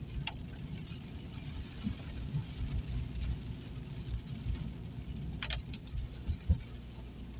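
Inside a car driving on a wet road in the rain: steady low rumble of engine and tyres with rain pattering on the car. The windscreen wipers sweep with a short squeak near the start and again about five and a half seconds in, and a low thump about six and a half seconds in is the loudest sound.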